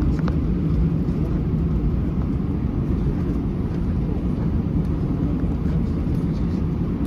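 Steady low cabin noise inside a Finnair Airbus A321-211, the airliner's CFM56 engines and airframe droning evenly with no change in pitch or level.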